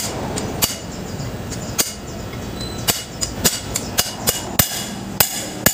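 Claw hammer striking a steel rod used as a drift on a ball bearing in a forklift caster wheel leg, driving the bearing: about ten sharp metal-on-metal blows at an uneven pace, coming faster in the second half.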